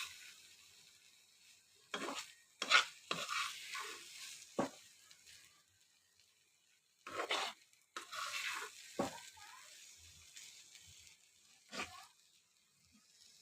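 Spatula stirring and scraping a thick garlic and dried-fish bharta in a hot frying pan, in irregular strokes with short pauses between, over a light sizzle.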